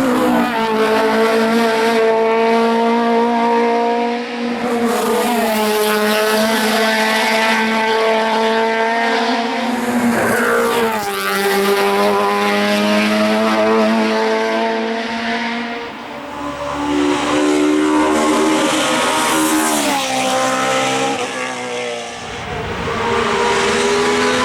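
Race car engine revving hard at high pitch on a hill climb. The note holds high, then drops and climbs back up about four times as the car shifts and works through corners.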